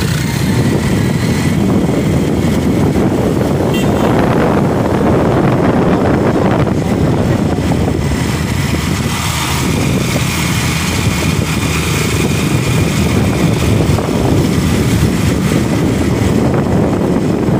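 A motorcycle under way: steady engine and road noise with wind rushing over the microphone.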